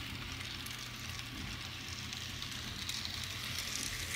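N-scale model diesel locomotive running on its track loop: a faint, steady running noise from its small electric motor and wheels on the rails, with a low hum underneath.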